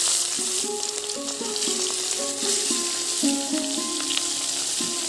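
Turmeric-coated fish pieces sizzling steadily as they fry in hot oil in an iron kadai. A melodic background music track plays over it.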